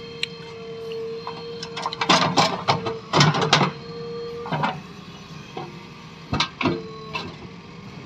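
JCB 3DX backhoe loader working its backhoe: the diesel engine runs under a steady whine while the bucket digs and lifts soil, with a burst of loud clanking and scraping about two to three and a half seconds in and a few single sharp knocks later.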